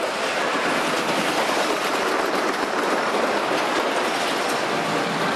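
Wooden roller coaster train running along its track overhead: a steady, loud rush of wheel noise with faint clicks.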